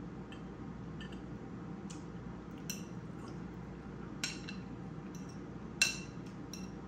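Metal fork clinking against a ceramic bowl while eating: several light, sharp clinks at uneven intervals, the loudest a little before six seconds in, over a steady low background hum.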